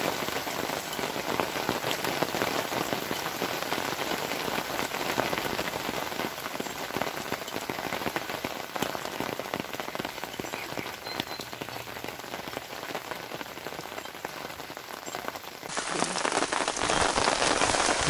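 Steady rain falling: an even hiss dense with the patter of drops. Near the end it turns louder and closer.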